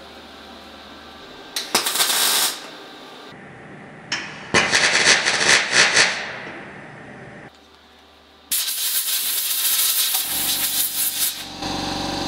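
MIG welder tacking a thin sheet-steel repair panel into a car fender, a crackling arc in three short bursts: about a second and a half in, about four and a half seconds in, and about eight and a half seconds in. A steady hum sets in near the end.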